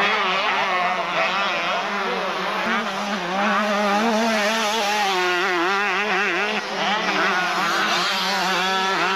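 Several two-stroke motocross bikes racing, their engines revving up and down, with several engine notes overlapping.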